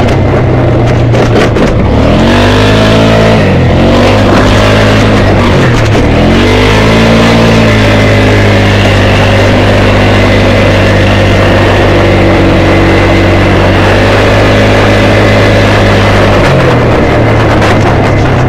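ATV engine running at speed. The revs rise and fall several times in the first seven seconds, then hold high and steady, dipping briefly near the end.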